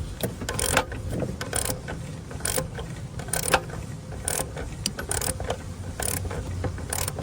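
Hand ratchet clicking in short bursts, about one stroke a second, while spark plugs and ignition coils are being removed from a car engine. A low steady hum runs underneath.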